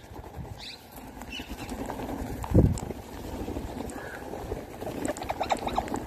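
A flock of rose-ringed and plum-headed parakeets flying in and landing, wings flapping, with one loud low thump about two and a half seconds in. A flurry of short, sharp sounds comes near the end.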